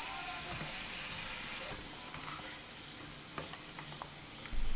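Sauced instant ramen noodles sizzling in a hot aluminium pot as they are stirred, the sizzle dying down after about two seconds. A few light clicks of chopsticks on the metal pot follow, then a low thump near the end.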